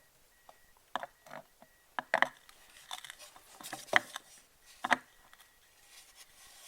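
Plastic radiator fan impeller being fitted onto the fan motor's shaft: a series of separate short knocks and clicks, about one a second, with quiet between them.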